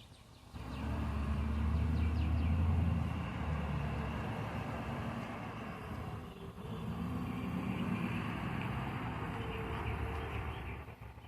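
A motor vehicle's engine running with a low drone. It comes up about half a second in, dips briefly around six seconds, then carries on until it drops away near the end.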